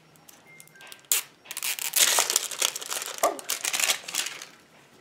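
Crinkly plastic packaging being torn open and crumpled by hand, starting about a second in and going on in rapid crackles until near the end.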